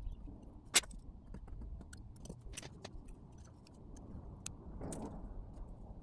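Small, sharp metallic clicks of watchmaker's tools (tweezers and screwdriver) against the parts of a pocket-watch movement while the crown wheel and ratchet wheel are fitted. There are a few scattered clicks, the loudest about a second in, over faint low background noise.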